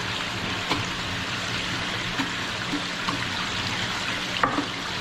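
Water running steadily in a continuous stream, with a couple of small clicks, the sharpest about four and a half seconds in.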